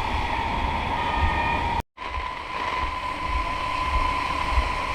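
A steady high whine holding one pitch over a noisy outdoor background, with wind rumbling on the microphone, broken by a sudden cut to silence about two seconds in.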